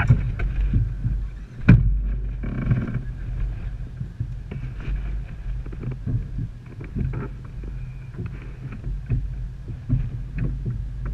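Side-by-side off-road vehicle's engine running steadily at low revs, with sharp knocks and rattles throughout. The loudest knocks come at the start and just under two seconds in.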